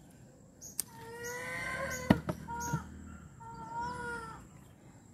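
A chicken calling in three drawn-out, steady-pitched notes: a long one, a short one, then another long one. A few sharp clicks fall between them, the loudest about two seconds in.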